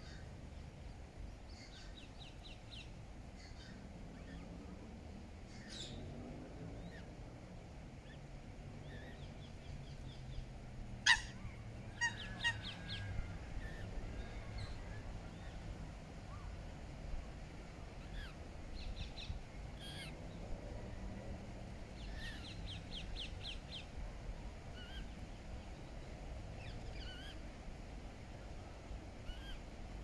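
Eurasian coots calling: one loud, sharp call about eleven seconds in and several quick runs of short high notes, over a steady low background rumble.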